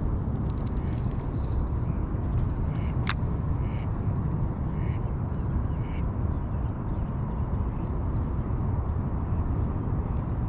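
Ducks quacking in short, repeated calls over a steady low rumble, with one sharp click about three seconds in.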